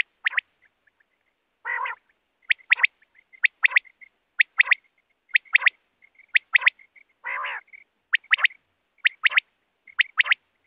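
Common quail calling: short phrases of two or three sharp, clipped notes, repeated about once a second, with two longer rasping calls, one about 2 seconds in and one about 7 seconds in.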